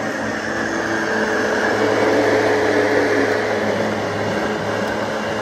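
Countertop blender motor running steadily at high speed, blending fresh fruit into a thick juice with no water added.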